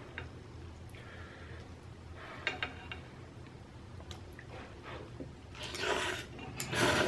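Close-miked chewing and mouth sounds of a person eating, with small clicks and a couple of louder bursts of chewing near the end.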